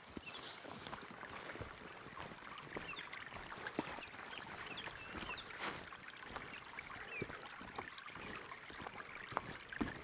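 Outdoor forest ambience: a small stream trickling, with scattered footsteps on the path and short high bird chirps throughout. The sharpest footfall comes near the end as the walker reaches the wooden plank bridge.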